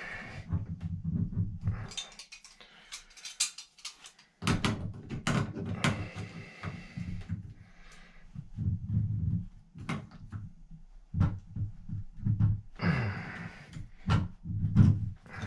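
A wrench knocking, clicking and scraping against a seized bonnet nut on a shower valve as the nut is strained at without turning. The tool makes a run of short, irregular knocks with rubbing in between, with a quieter pause a couple of seconds in.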